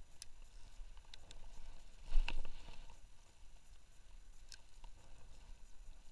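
A few faint clicks and taps, with one louder knock about two seconds in, over a faint low rumble of outdoor noise.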